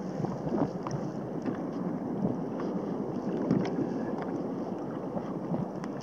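Wind buffeting the microphone over choppy sea water lapping against a kayak, with a few light knocks.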